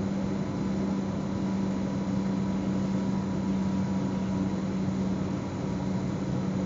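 Electric S-Bahn train heard from inside the driver's cab: a steady low hum over an even rush of noise, with a fainter higher whine during the first few seconds.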